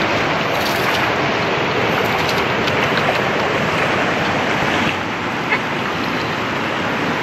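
Shallow rocky river rushing steadily, with water sloshing as rice is swirled by hand in an aluminium pot and the cloudy rinse water poured back into the stream.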